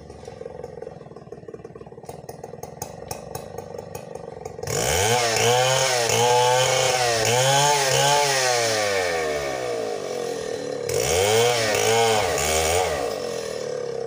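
Stihl 070 two-stroke chainsaw idling, then about five seconds in revved hard, its pitch rising and falling in several surges. It eases off briefly, surges twice more, and drops back to idle near the end.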